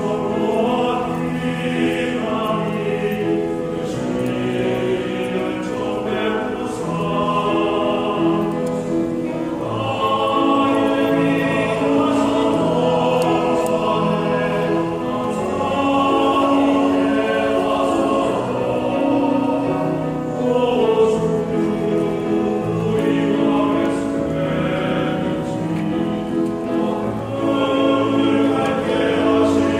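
Church vocal ensemble singing a slow hymn in harmony, several parts sounding together on long held notes.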